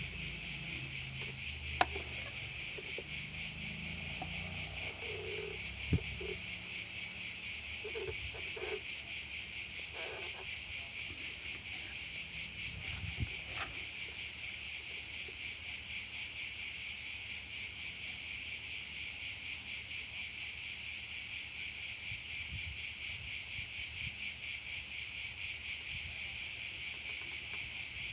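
Insects, most likely crickets, chirring steadily with a rapid pulsing trill throughout. A few short clicks and knocks from handling stand out about 2, 6 and 13 seconds in.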